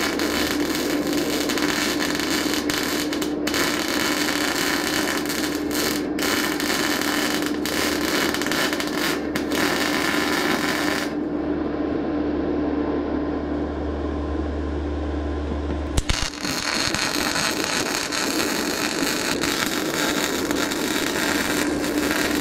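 MIG welder arc crackling steadily as a bead is laid on the sheet-steel tractor nose cone, over a steady hum. Partway through the arc stops for about five seconds, leaving only the hum, then strikes again with a sharp snap and crackles on until near the end.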